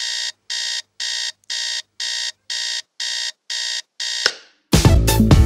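Digital alarm clock beeping, about two buzzy beeps a second, cut off by a single sharp knock about four seconds in. Loud music starts just after.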